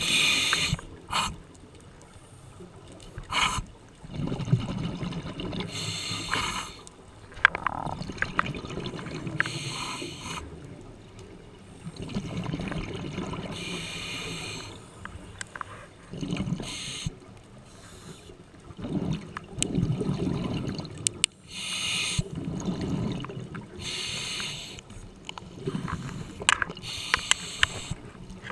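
Scuba diver's regulator breathing heard underwater: hissing inhales alternate with bubbling exhales over several breath cycles, with scattered small clicks.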